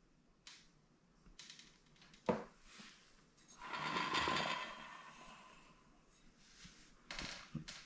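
Faint handling noise: a few scattered clicks and knocks, with a longer rustling scrape around the middle and two more clicks near the end.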